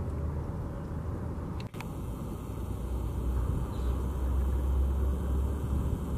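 Steady low rumble of outdoor background noise, with a brief dropout just under two seconds in.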